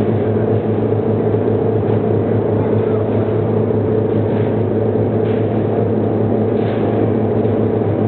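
Inverted vertical wire drawing machine running under load, drawing steel wire rod: a steady, loud mechanical drone from its motor and gear reduction box, with a strong low hum.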